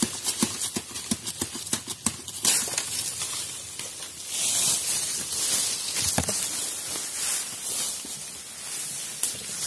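Footsteps crunching and rustling through dry fallen bamboo leaves, with scattered sharp crackles and patches of leafy hiss.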